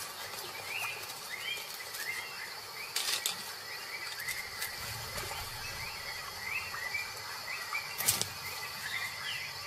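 Jungle ambience: birds giving short rising chirps again and again over a steady high insect drone. A few brief crackling rustles stand out, the loudest about eight seconds in.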